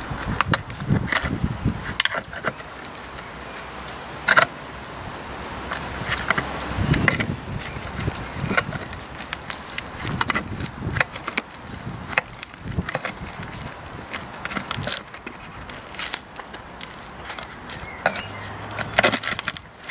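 Irregular scraping, clicking and knocking of hands and a tool working on a motorcycle seat, as the old PVC seat cover is pried and peeled off its base.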